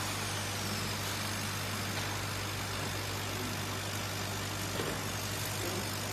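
CO2 laser cutting machine running while engraving, a steady hum with an even hiss from its fans and air assist.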